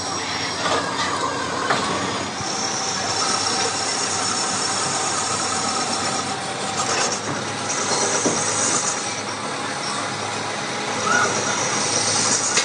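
Metal lathe turning a tractor differential case: the cutting tool scrapes the spinning casting with a steady metallic squeal and hiss, broken by a few short knocks.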